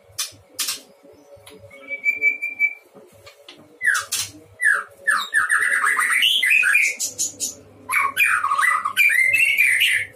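Male white-rumped shama (murai batu) singing: one held whistle about two seconds in, then quick runs of sweeping, chattering notes from about four seconds in, with a short break near eight seconds before the song resumes.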